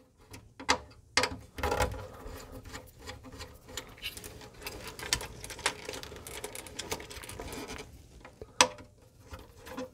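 Wires being fitted into screw terminals with a small screwdriver inside a metal enclosure: scattered sharp clicks and light scraping and rustling, the loudest clicks about two seconds in and near the end.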